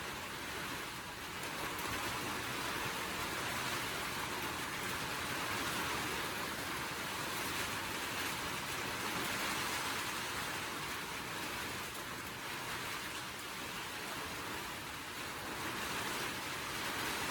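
A steady, even hiss with no distinct knocks or clicks.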